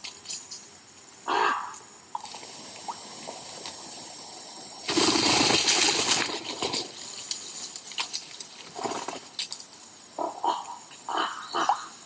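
A loud burst of wing flapping about five seconds in, lasting under two seconds, typical of a wood pigeon clattering up into flight. It is followed near the end by several short animal calls, and there is one more call about a second in.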